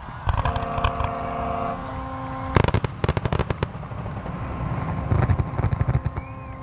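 Fireworks display: low booms of shells bursting, with a rapid run of sharp crackling bangs about two and a half seconds in as the loudest part. A steady pitched tone sounds behind it, first briefly near the start and again from the middle on.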